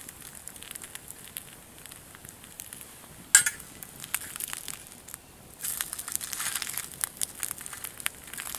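Small wood fire in a Dakota fire pit crackling with many small snaps, and one sharp pop about a third of the way in. Denser hissing and crackle follows over the last few seconds.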